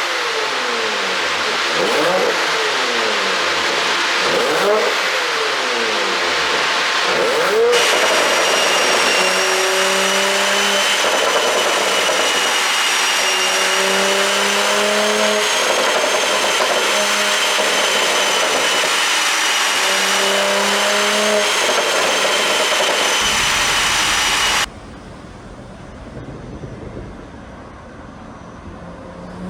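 2021 Porsche Macan GTS twin-turbo V6 with a pop-and-crackle ECU tune, revved in repeated quick blips that rise and fall for the first several seconds. It then runs at a steadier pitch with a constant high whine over it, and near the end the sound drops much quieter.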